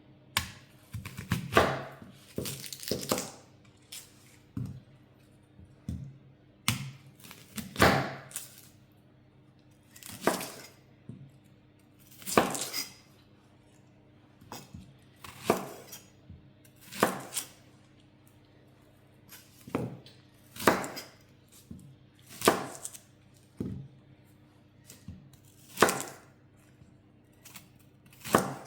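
Kitchen knife cutting onions on a chopping board, with the crackle of their dry skins: a short crunching stroke every one to three seconds.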